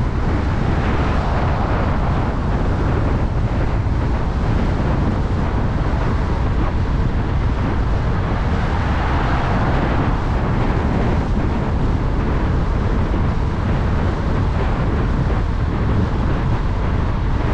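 Wind buffeting the microphone on a moving car, over a steady rush of tyre and road noise.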